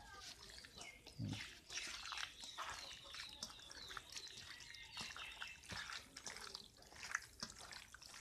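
Raw chicken pieces being mixed and squeezed by hand in a steel bowl: faint, irregular wet squelching and clicking, with a soft low thump about a second in.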